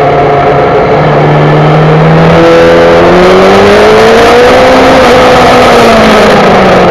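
Yamaha YZF-R6 inline-four engine heard from on the bike, under a loud rushing noise. The engine pitch climbs steadily for a few seconds as the bike accelerates, then falls away near the end.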